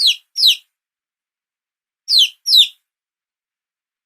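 A bird chirping: two pairs of short, high chirps, each falling steeply in pitch, the second pair about two seconds after the first.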